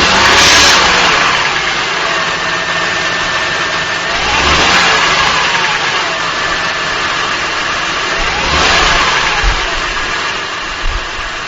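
2005 Acura TL's 3.2-litre V6 idling and blipped up and back down three times, about four seconds apart, heard from beneath the front wheel well. It carries an engine knock that the dealer and Acura concluded is normal valve-train noise.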